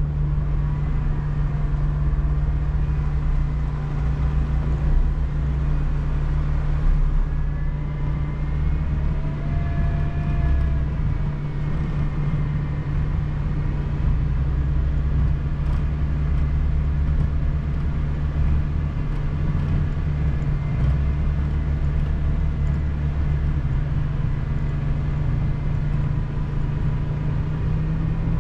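Off-road vehicle's engine running steadily at low trail speed, a deep continuous drone with a faint wavering whine above it. The engine note rises a little near the end.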